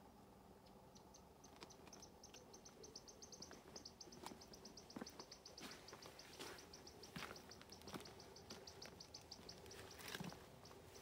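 Faint, fast, even chirping, about ten high chirps a second, starting about a second in, from a small bird or insect out of sight, over footsteps knocking and scuffing on a stone and gravel path.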